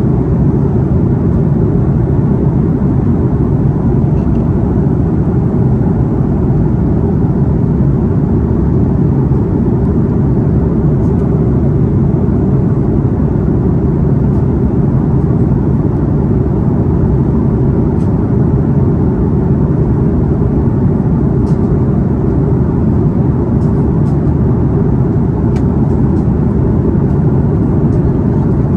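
Steady cabin noise inside an Airbus A330 climbing after takeoff: the engines and rushing air make an even, low roar, with a few faint ticks over it.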